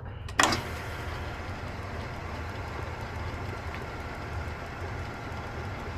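1930s Sheldon metal lathe running steadily at about 650 RPM with the tool not yet cutting: an even motor and spindle hum. A single click comes about half a second in.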